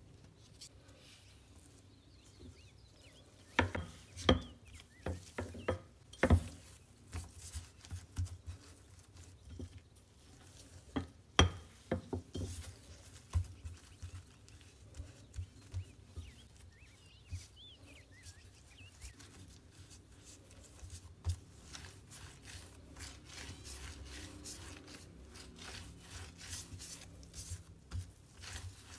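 Bread dough being flattened and rolled by gloved hands on a wooden board: soft rubbing and patting, with a few sharp knocks on the wood, the loudest about four, six and eleven seconds in. A denser run of light taps and rubbing follows as the dough is rolled into a rope.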